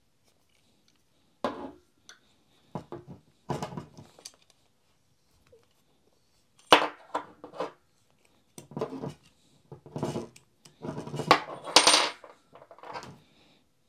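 Steel two-jaw bearing puller being fitted over the bearing on an electric-motor armature: irregular metallic clinks, knocks and scrapes as its jaws and crossbar are moved into place. The loudest clink comes about seven seconds in, with a run of clatter near the end.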